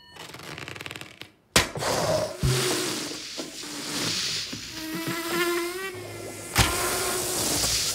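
Cartoon sound effects of a flying pufferfish: a fast rising buzz that stops short, then a sharp hit about a second and a half in. A wavering squeal follows in the middle, and another sharp hit comes near the end.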